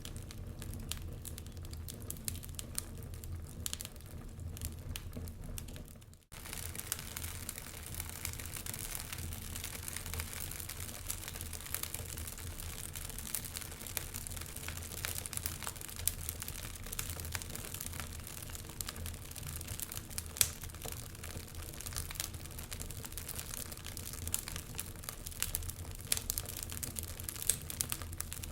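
A fire crackling, with frequent irregular sharp pops over a low steady hum. The sound cuts out briefly about six seconds in.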